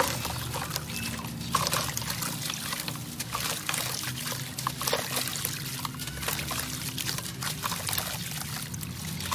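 Hands crumbling a dry, extra crunchy moulded block of dusty reddish material into a water-filled steel basin: a dense run of small crunches and crackles as pieces break off, over a steady hiss of grit and powder pouring into the water.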